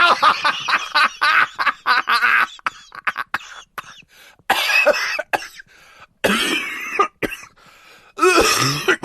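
An adult man laughing helplessly in a fast run of short voiced bursts, then breaking into coughing: three separate coughing bouts, about 4.5, 6 and 8 seconds in.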